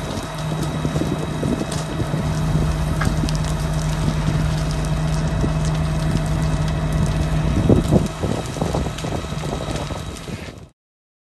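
Wind buffeting the microphone over a burning wooden house, with short crackles and a steady low engine hum that stops about seven and a half seconds in. A few louder knocks come about eight seconds in, and the sound cuts off shortly before the end.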